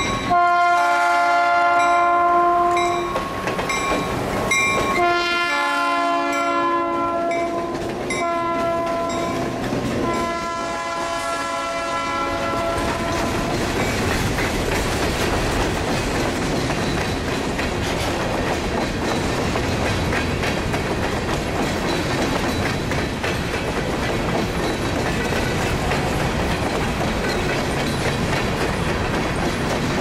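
Freight locomotive's Leslie three-chime air horn blowing the grade-crossing signal: long, long, short, long over about the first 13 seconds. After that, loaded covered hopper cars roll past close by, their wheels clacking steadily over the rail joints.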